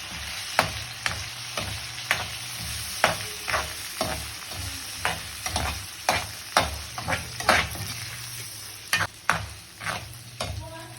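Chicken frying in a pan while it is stirred: a cooking utensil knocks and scrapes against the pan in irregular strokes, about one or two a second, over a steady sizzle.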